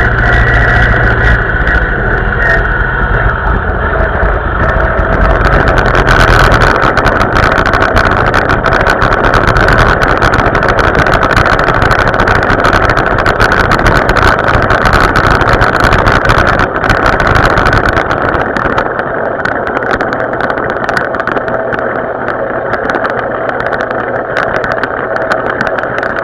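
Vintage tractor engine running steadily as the tractor drives along, heard close up from the driver's seat. The low rumble eases somewhat after about eighteen seconds.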